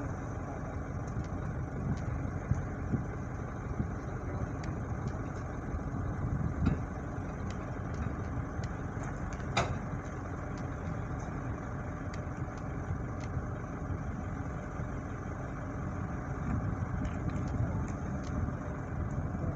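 Steady low rumble of a running engine, with faint scattered ticks and one sharper tick about halfway through.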